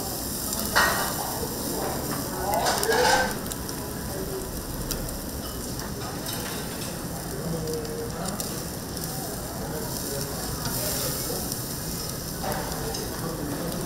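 Beef ribs sizzling on a grill, a steady hiss and crackle, with a sharp click about a second in and a louder swell of sizzling around three seconds in.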